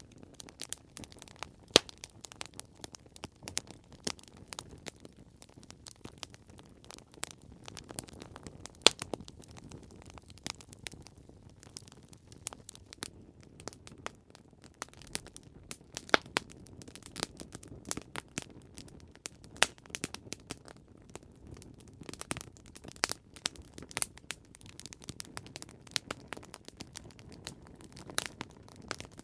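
Wood campfire crackling: a steady stream of irregular snaps and pops over a low hiss of burning, with a few louder pops standing out.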